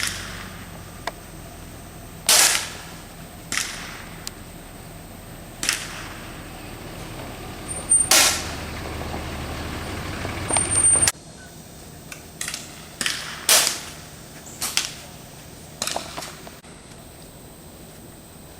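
Air rifles firing on a benchrest line: about ten sharp, separate shots at irregular intervals, from several rifles going off independently.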